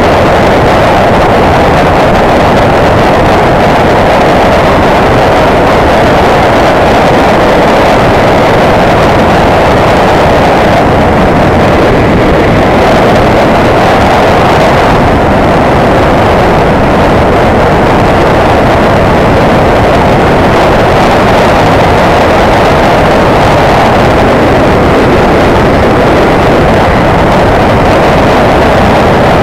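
Loud, steady rush of wind and engine noise from a motorcycle underway on the road, with no distinct engine note standing out.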